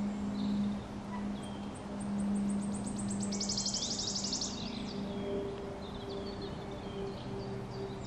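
Woodland songbirds: one sings a rapid trill of high repeated notes that speeds up and grows louder, then breaks off at about four and a half seconds, while other birds give short high calls. A steady low hum runs underneath, joined by a second, slightly higher hum about halfway through.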